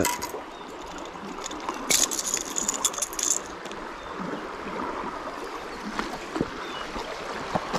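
Swift river current rushing steadily, with a cluster of metallic clicks and rattles about two seconds in as pliers work a Rattletrap rattling crankbait out of a white bass's mouth. A few lighter ticks follow.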